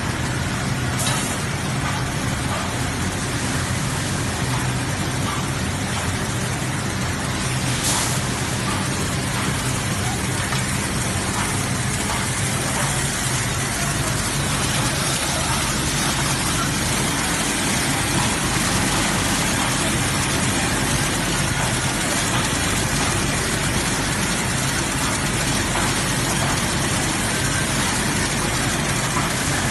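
Servo-driven chocolate packing line running: a steady, dense mechanical noise from its conveyor chain and drives, with a low hum at first. A sharp click sounds near the start and another about eight seconds in.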